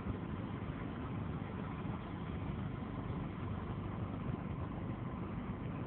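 Steady low rumble of vehicle engine and road noise, with a faint steady high tone above it.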